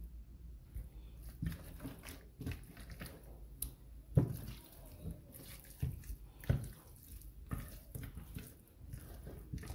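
Hands massaging spice rub into raw chicken pieces: irregular wet squelches and soft thumps.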